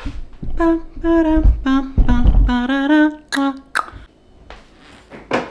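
A woman humming a short wordless tune in a few held notes that step down in pitch, with a couple of low thuds under it. It tails off into quiet clicks.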